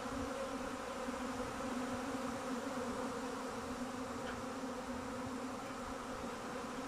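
Honeybee swarm buzzing: a steady hum from thousands of bees in flight around the swarm cluster as it settles onto the branch where it has just been caught.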